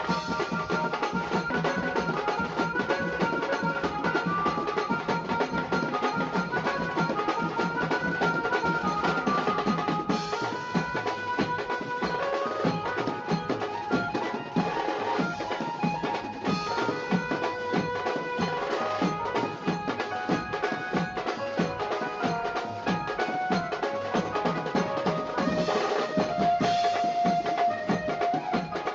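Background music with fast, steady drumming under a melody that steps up and down.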